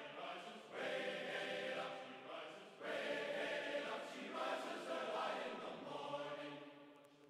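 Choral music: voices holding chords in phrases, with a short break about a second in and again near three seconds, then fading out toward the end.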